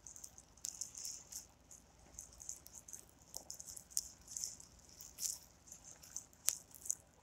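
Faint, scattered small clicks and ticks, with one sharper click about six and a half seconds in.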